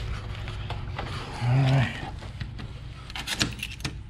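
Jacket fabric scraping and rubbing against a body-worn camera as the wearer moves, with a brief low hum about a third of the way in. Near the end comes a quick cluster of clicks as keys go into a door lock.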